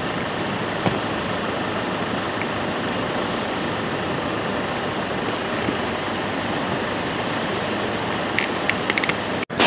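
Steady rush of surf breaking on a sandy beach, mixed with wind on the microphone, with a few faint clicks near the end before the sound cuts off suddenly.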